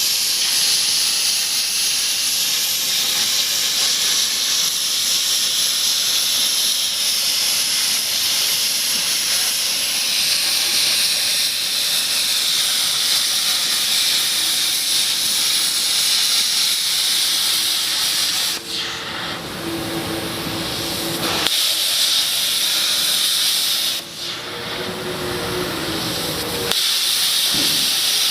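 Hypertherm XPR300 plasma torch cutting steel: a loud, steady hiss. In the last third it breaks off and changes character several times, with faint steady tones underneath.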